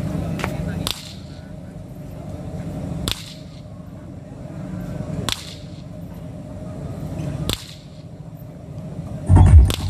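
Sharp test pulses from a polarity (phase) checker played through a large horn-loaded sound-system stack: a crack about every two seconds, four times. Just before the end, loud music with heavy bass starts through the system.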